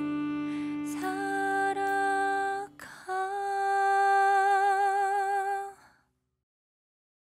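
A female singer holds the song's last long notes, the second one with vibrato, over a low sustained accompaniment; the music stops about six seconds in.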